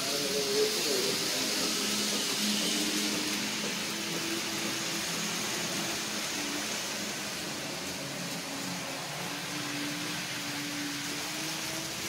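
N scale model trains running on the layout: a steady whir of small electric motors and wheels rolling on the track, with a faint wavering hum that rises a little near the end.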